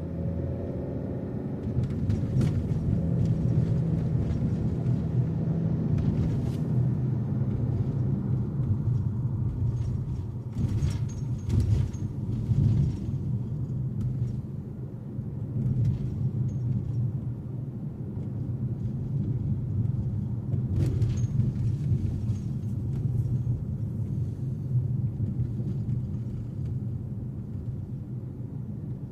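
Car on the move: a steady low road and engine rumble, with a few brief knocks now and then.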